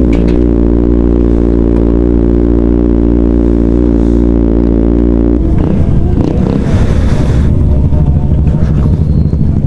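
Kawasaki Ninja ZX-4RR's 399 cc inline-four through an aftermarket Austin Racing muffler, running at low, steady revs while rolling slowly. About five and a half seconds in, the steady note gives way to an uneven, rougher idle as the bike slows to a stop.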